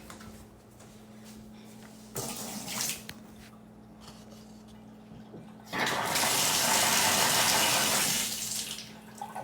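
Water running from a tap: a short burst about two seconds in, then a steadier run of about three seconds that stops near the end.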